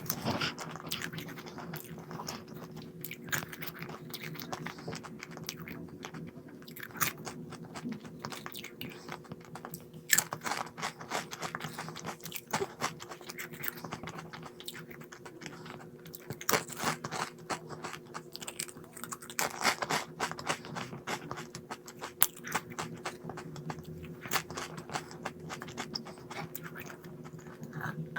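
Crunchy snack being bitten and chewed close to the microphone, with irregular crisp crunches throughout, over a faint steady hum.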